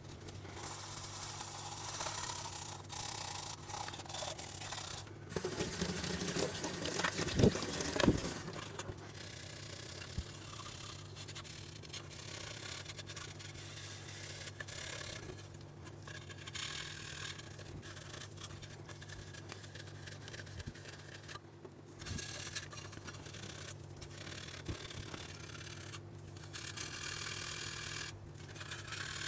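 Rubbing and scraping on the metal of an old Esbit field stove being cleaned up, with a louder stretch and two knocks about seven to eight seconds in.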